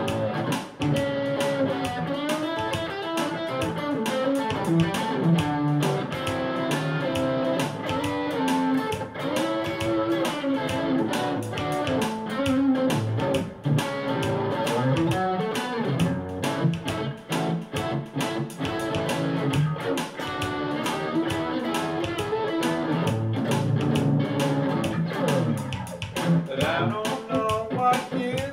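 Electric guitar played through an amp in an instrumental gospel shuffle, with a steady beat.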